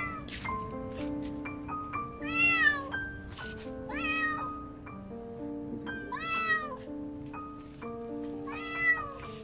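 A kitten meowing, four loud high cries each rising and falling in pitch, about two seconds apart, over background music.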